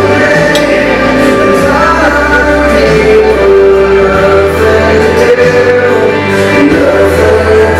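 A slow song playing, a singer's voice held over instrumental backing with a steady bass.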